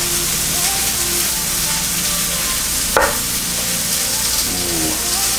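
Chicken frying in a pan with a steady sizzle. About three seconds in comes a single sharp knock as a kitchen knife cuts through a boiled egg and strikes the wooden cutting board.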